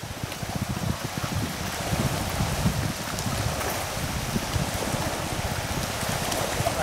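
Floodwater of a risen lake rushing and lapping around deck pilings and tree trunks: a steady wash with an irregular low rumble beneath it.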